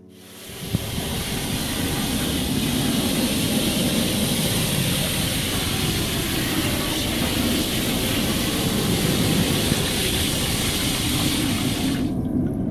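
Loud, steady rushing and churning of water in a bathtub, starting suddenly about half a second in. Near the end the hiss drops away and a lower rumble of moving water goes on.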